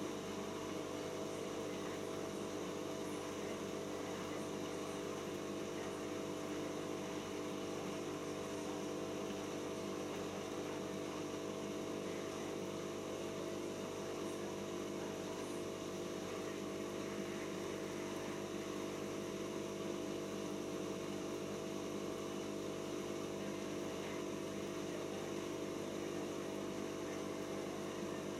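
Siemens iQ WIQ1430 washing machine running its 400 rpm intermediate spin, a steady motor hum with a constant pitch from the drum turning at an even speed.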